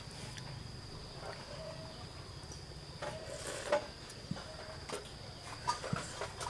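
Insects chirring, a steady high-pitched drone, with a few soft clicks in the second half.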